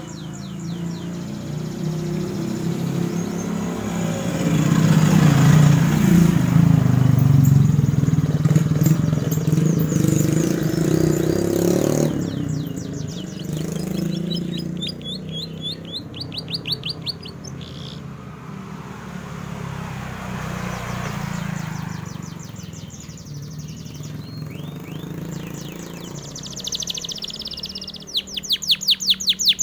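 Domestic canary singing in bursts of fast, high trills and chirps, liveliest near the end. A motor vehicle passes from about four seconds in and is loud for several seconds, drowning out the bird; a second one passes more quietly later.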